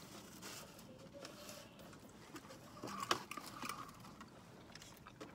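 Quiet handling noises inside a car: a paper food tray rustling as it is set down, with scattered small clicks and taps, the sharpest about three seconds in.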